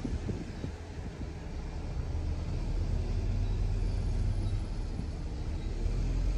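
Car driving at steady speed: a low rumble of road and tyre noise.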